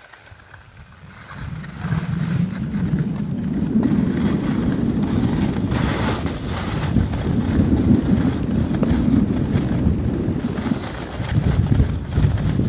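Wind rumbling on the microphone while skiing downhill. It builds over the first two seconds, then stays as a heavy, gusty low rumble.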